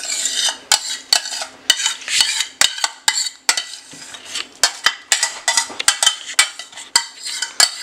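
A utensil scraping and clinking against a metal pan as a thick potato and tomato masala is scraped out into a stainless steel pressure cooker: repeated sharp clinks and scrapes, two or three a second, with the soft slide of the food.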